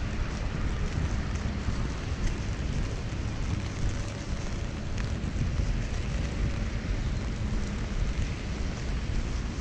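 Steady rain falling on a clear umbrella held over the camera, mixed with wind rumbling on the microphone and traffic on the wet road.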